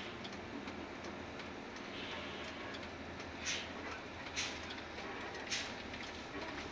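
A vehicle driving, heard from inside: a steady low engine and road rumble, with three short clicks or rattles about a second apart midway through.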